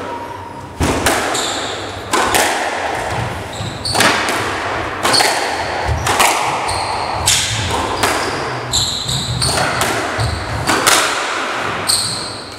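Squash rally: the ball cracks off the rackets and the court walls about once a second, each hit echoing around the court. Short high squeaks of shoes on the wooden floor come between the hits.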